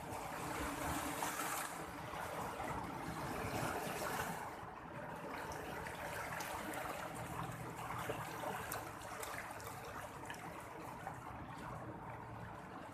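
Sea water washing and lapping, the rush swelling and easing.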